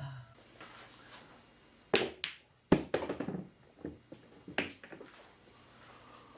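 Sharp knocks and taps of hard objects striking: two about two seconds in, the loudest just before three seconds, then a quick run of lighter taps and a few more knocks.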